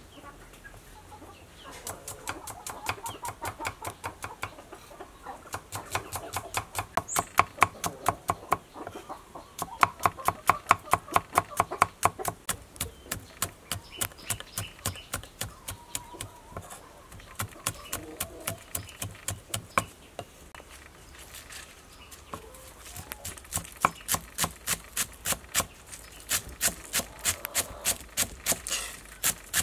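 Kitchen knife chopping shallots, chillies and spring onions on a thick wooden chopping block: rapid, even knocks, about five a second, in runs with short pauses. Chickens cluck in the background.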